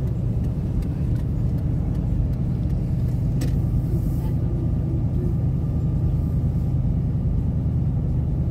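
Car cabin noise while driving slowly: steady low engine and road noise heard from inside the car.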